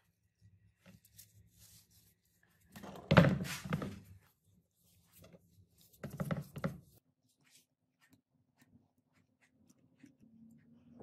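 Handling sounds on a wooden board: a solid thunk about three seconds in and a shorter knock about six seconds in, as a metal bar and a paper template are set down and positioned on it.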